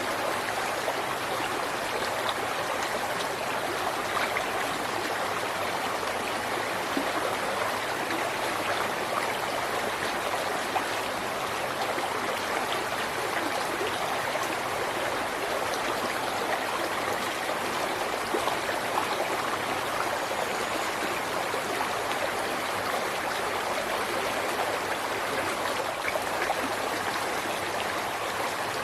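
River water flowing steadily over rocks, an even rushing with small splashes and gurgles throughout.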